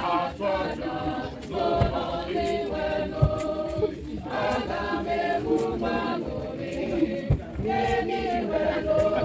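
A group of voices singing together, unaccompanied, in long held notes, with a few dull low thuds.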